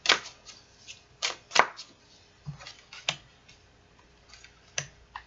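Tarot cards being shuffled and pulled from the deck: a handful of sharp snaps and slaps of card stock, irregularly spaced.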